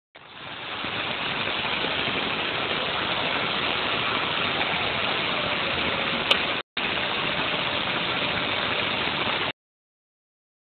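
Homemade CNC machine's Y axis running under its motor drive during a test move: a steady mechanical running noise that fades in at the start, has a click and a very brief break about two thirds through, and stops abruptly about a second before the end.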